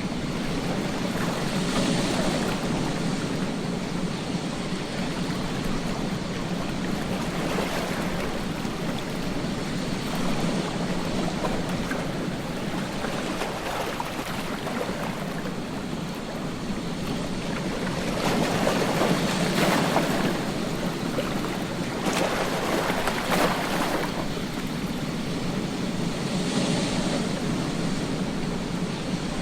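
Ocean waves breaking on a beach: a constant wash of surf, with louder breakers swelling and falling away several times, strongest around two-thirds of the way through.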